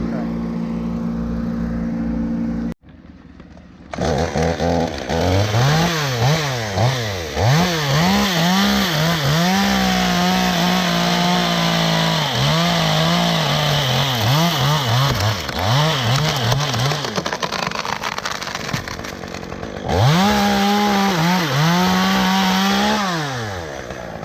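Two-stroke chainsaw revving up and down repeatedly, then held at full throttle through long cuts, easing off for a few seconds and running flat out again before dropping away near the end. It is preceded by a steady engine hum that breaks off abruptly about three seconds in.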